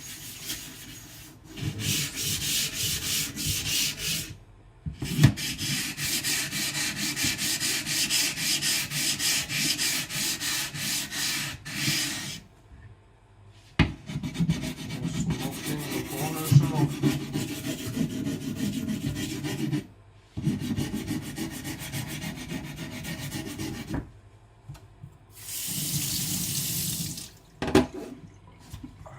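Wet whetstone being scrubbed and rinsed with running water, in several bouts of rubbing with short pauses between them.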